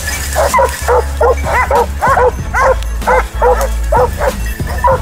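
Hunting hounds barking rapidly, about three barks a second, as they hold a wild boar at bay.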